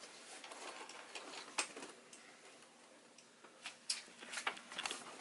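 Scattered light clicks and taps from handling a gaming chair's parts as its neck pillow is fitted, with a quieter stretch in the middle and a small cluster of clicks near the end.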